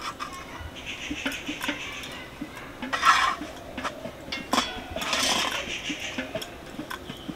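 Irregular clinks and knocks of cooking utensils, an iron wire-mesh roti holder among them, being worked at a clay stove, with two louder bursts of noise about three and five seconds in.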